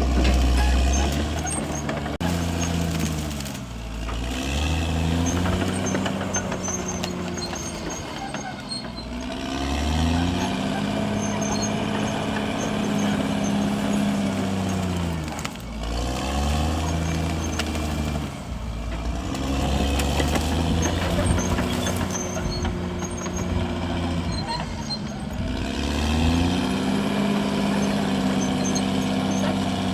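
Caterpillar D6R XL bulldozer's diesel engine working, its engine speed sagging and climbing back again and again as the load comes on and off.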